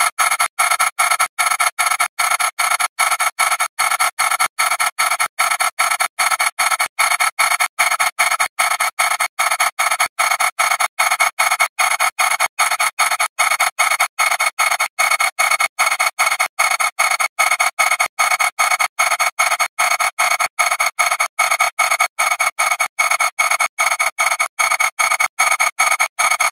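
Audio wrecked by being re-exported thousands of times: a thin, tinny, noisy buzz with several held tones and no bass. It is chopped by brief dropouts at an even rate of about two a second.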